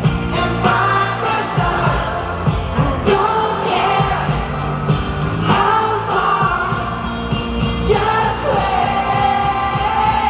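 A pop song plays, with a sung vocal melody over full instrumental backing.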